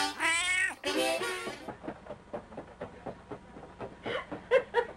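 A black domestic cat meows twice, each meow drawn out and falling in pitch, in the first second and a half. After that come scattered light clicks and taps.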